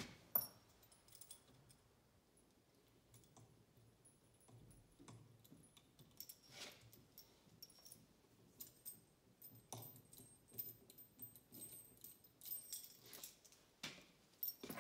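Mostly quiet, with sparse faint metallic clicks and clinks as small bolts are unthreaded by hand from a flywheel puller and set down. One sharper click comes about half a second in.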